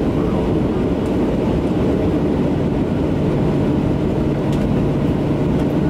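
Steady inside-cabin noise of a Boeing 737-700 standing on the taxiway with its engines at idle: an even, constant drone with a steady low hum.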